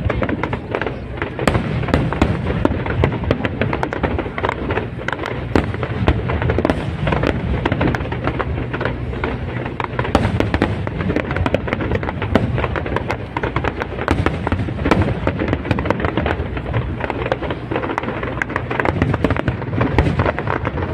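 Aerial fireworks display: a dense, continuous barrage of overlapping bangs and crackles with a deep rumble underneath.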